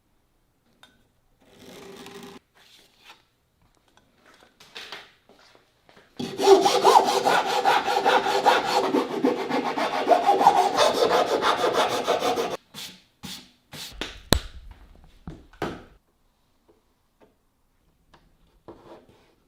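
Wood being sawn in a dense run of rasping strokes for about six seconds, starting about six seconds in. A few sharp knocks and clicks follow.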